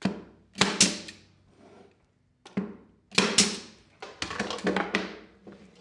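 Pneumatic brad nailer firing brads into plywood: a series of sharp shots, some in quick pairs, with a quick run of clicks near the end.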